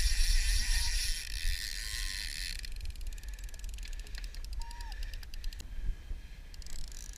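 Fishing reel's clicking drag paying out line to a hooked king salmon. It gives a fast, continuous buzz for the first two and a half seconds, slows into separate clicks, stops about three seconds later, and buzzes briefly again near the end. A low rumble runs underneath.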